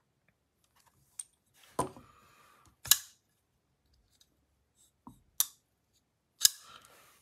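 Brown Knives Cortex XL folding knife, freshly fitted with Skiff pivot bearings, being fired open and closed: sharp metallic snaps as the blade locks up and shuts, the loudest coming in two pairs about a second apart, with quieter clicks between. The action is being tested for blade play after the pivot was tightened.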